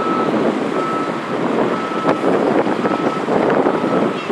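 Twin jet engines of a Boeing 777-200 at climb power, a loud, steady, crackling roar as the airliner climbs away after takeoff. A high beep repeats about once a second over it.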